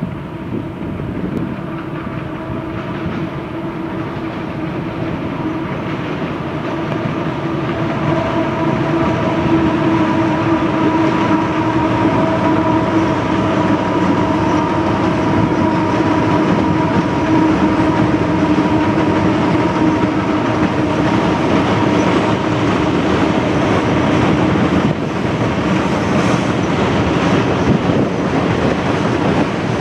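Train crossing a high steel trestle bridge overhead, heard from beneath it: a continuous rumble with several steady humming tones over it. It builds over the first ten seconds or so, then holds.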